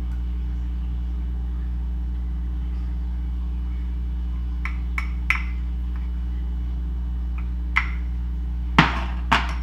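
Light clinks of a spoon against a small ceramic sauce bowl as sauce is scraped out, a few about halfway through and two louder knocks near the end, over a steady low hum.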